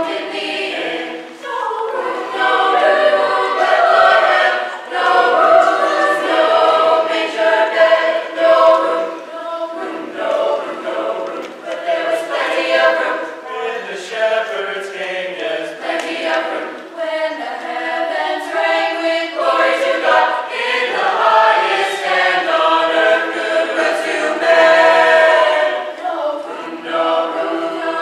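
Mixed-voice high school choir of boys and girls singing together in several parts, in phrases that swell and ease.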